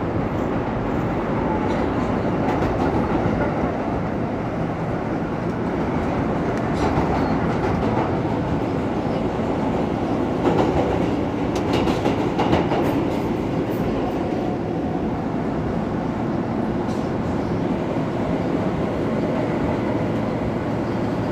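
R160 subway car running at speed, heard from inside the car: a steady rumble of wheels and running gear, with wheel clicks over rail joints, a cluster of them about halfway through.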